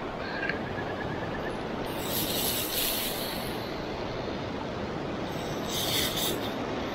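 Steady rushing of a flowing river, with two brief brighter hissing surges about two and six seconds in.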